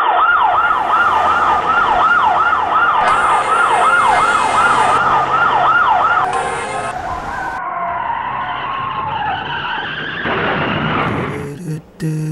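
Ambulance siren in a fast yelp, its pitch rising and falling about twice a second; about six seconds in it changes to a lower, slower falling wail that fades away. Near the end the intro of a song begins.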